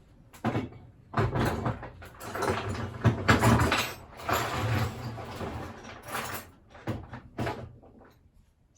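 Knocks and clatter of metal boiler parts being handled and set down: several sharp knocks with scraping and rattling between them, and two separate knocks near the end.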